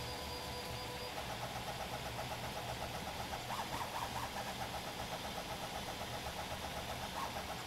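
Hypercube 3D printer's stepper motors driving the print head: a steady whine for the first second, then a rapid, even buzzing rhythm of short back-and-forth moves.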